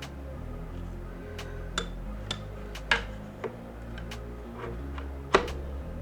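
Background music with a steady, stepping low bass line. Several sharp clicks and taps of hard objects being handled cut through it, the loudest about three seconds in and again near the end.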